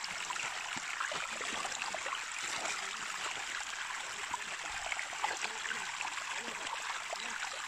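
Shallow creek water running and trickling over rocks in a steady rushing hiss, with small splashy crackles.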